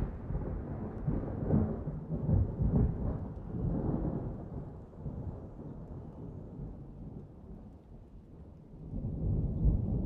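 Rolling thunder rumbling low under rain, dying away over several seconds and swelling into a new roll near the end.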